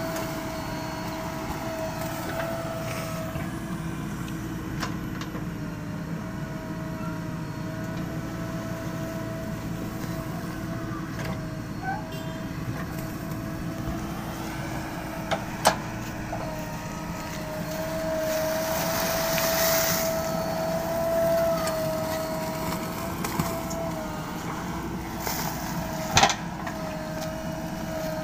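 JCB backhoe loader's diesel engine running steadily with a constant whine, working the bucket in river sand. A few sharp metallic clanks come in the second half, and the machine grows louder for a few seconds past the middle.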